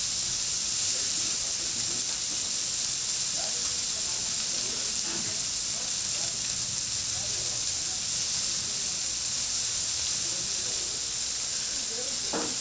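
Food sizzling steadily on a hot iron teppanyaki griddle. There is one brief knock near the end.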